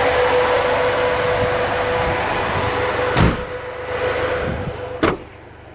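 Steady mechanical hum with a constant tone, broken by two sharp metal knocks about three and five seconds in, typical of a van's twin rear doors being handled; the hum drops away sharply right after the second knock.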